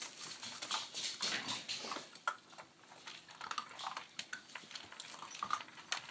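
Chocolate Labrador puppies eating dry food from a shared bowl: loud crunching, an irregular run of quick crunches and clicks.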